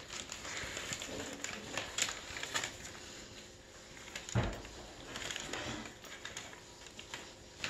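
A puppy tearing and pulling at a wrapped present with its mouth: irregular rustling and crinkling of wrapping paper, with a dull thump about four and a half seconds in.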